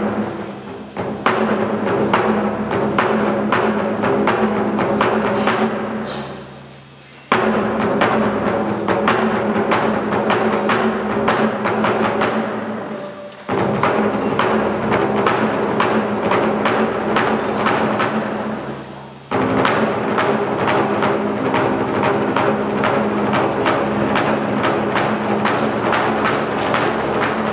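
Large Chinese barrel drum played in fast rolls with two sticks. Each roll starts suddenly loud and fades away over about six seconds before the next begins. New rolls start about 7, 13 and 19 seconds in, and the last one stays loud.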